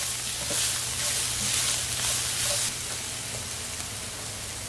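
Diced onion, celery, green pepper and garlic sizzling in olive oil in an enamelled Dutch oven while a silicone spatula stirs them. The stirring stops about two-thirds of the way through, leaving a quieter, steady sizzle.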